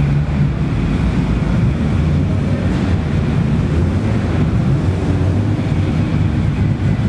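Nissan Skyline R32 GT-R's engine idling with a steady low rumble as the car creeps along.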